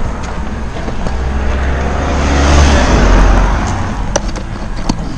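A car passing close by on the road: engine and tyre noise swell to the loudest point about halfway through, then fade. A few light knocks of rocks being shifted at the roadside sound over it.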